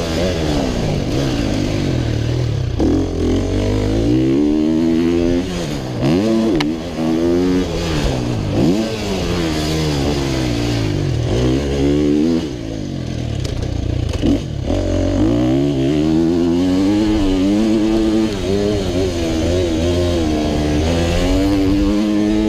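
A 125cc two-stroke motocross bike engine being ridden hard, revs repeatedly climbing and dropping as the throttle is opened and shut.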